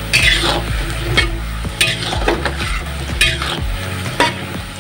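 Tempe cubes sizzling as they deep-fry in hot oil in a wok, with a metal spatula scraping and stirring through them in repeated strokes about once a second.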